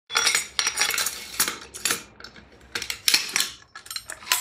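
Metal clinking and rattling from a brass bathtub waste-and-overflow tee and its drain plunger assembly as they are handled: a quick, irregular series of sharp clinks.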